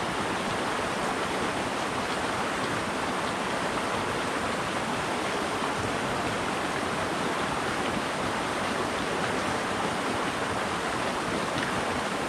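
Creek water rushing steadily over rocks in a shallow riffle.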